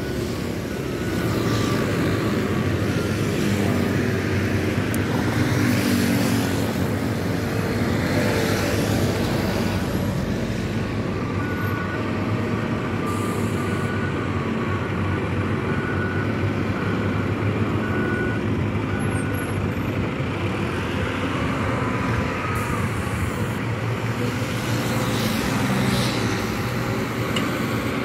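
Steady road traffic noise of trucks and cars passing.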